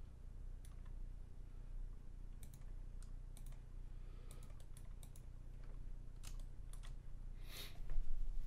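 Scattered clicks of a computer keyboard and mouse at irregular intervals over a steady low hum. One louder, slightly longer burst comes near the end.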